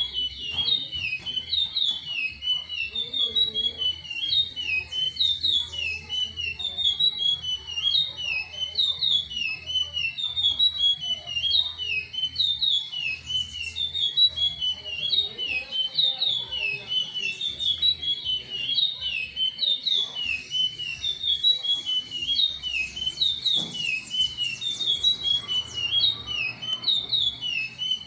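Curió (chestnut-bellied seed-finch) singing without pause: a fast run of short whistled notes repeated over and over, with a low wind rumble underneath.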